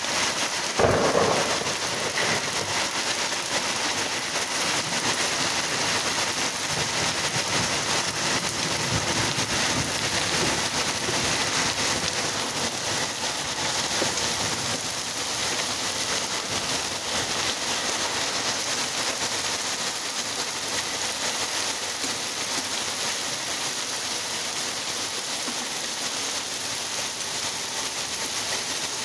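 Hail mixed with rain falling on asphalt and brick paving: a dense, steady hiss of countless small impacts. A single brief thump about a second in.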